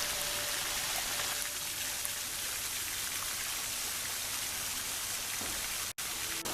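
Water fountain splashing steadily, cutting out for an instant near the end.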